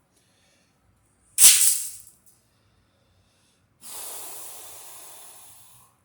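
Blowing air: a short, loud gust of hiss about a second and a half in, then a softer, longer hiss that fades away near the end.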